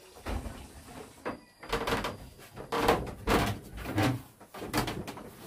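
A run of irregular knocks and clunks, several in quick succession, starting a little under two seconds in.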